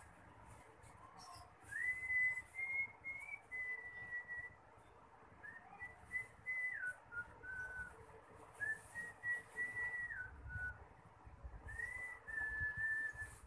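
A person whistling a slow tune: four phrases of clear, held notes stepping up and down, with gaps between them. Faint rustling of fabric being handled underneath.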